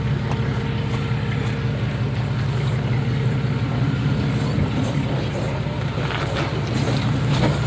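Off-road vehicle's engine running at a steady low drone as it crawls slowly over a rocky dirt trail, with a few sharp crunches of stones under the tyres near the end.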